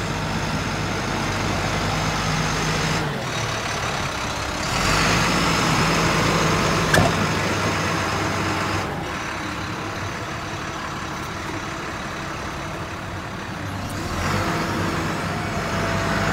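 International 4300 bucket truck's diesel engine idling steadily, with a louder stretch of rustle and a single sharp click about seven seconds in.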